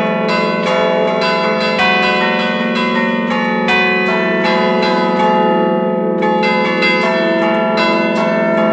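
Church tower bells played as an allegrezza from a baton keyboard: the clappers are pulled against several bells in quick melodic patterns, each bell's ringing overlapping the next. The strikes thin out briefly a little past the middle, then pick up again.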